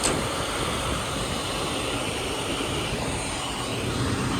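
Fire apparatus engines running, a steady rumble, with a short sharp click right at the start.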